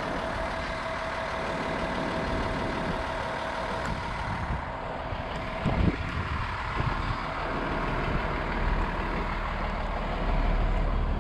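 Box truck engine running as the 26-foot truck rolls slowly through a lot, with a steady whine over the first few seconds and a single knock about six seconds in.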